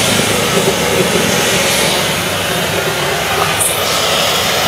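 Potato sticks deep-frying in a large wok of hot oil: a loud, steady sizzle of bubbling oil.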